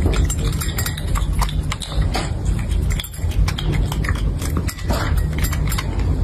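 Cats eating: a dense, irregular run of chewing and lapping clicks from a cat feeding at a plate, with a kitten meowing about four seconds in.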